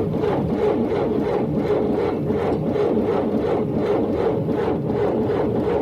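Car engine cranking on the starter motor without catching, turning over in a steady, rapid rhythm of pulses: a no-start.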